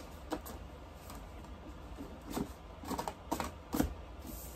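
Handling noise from cardboard kit boxes and their contents being moved about on a desk: about half a dozen soft taps and rustles, spread irregularly over a few seconds.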